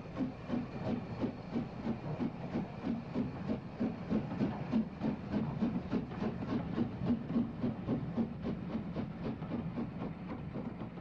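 Double-headed steam train, a Highland Railway 'Jones Goods' 4-6-0 and a Black 5, pulling away: a steady rhythmic beat about three times a second over a hiss of steam, easing off slightly near the end.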